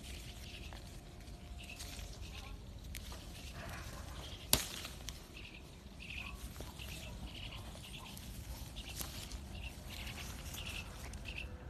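Birds chirping, short repeated calls through the whole stretch over a low outdoor rumble, with one sharp snap about four and a half seconds in.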